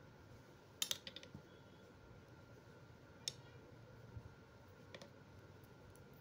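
Metal knitting needles clicking against each other as stitches are worked by hand: a quick cluster of clicks about a second in, a single sharper click near the middle, and a faint one later, over quiet room tone.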